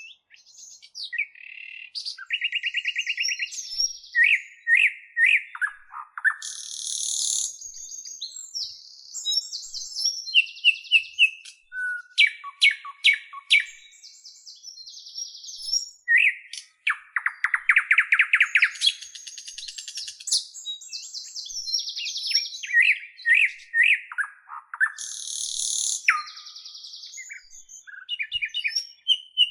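A bird singing a long, varied song: a changing run of high chirps, fast trills and buzzy notes with short pauses, each phrase different from the last.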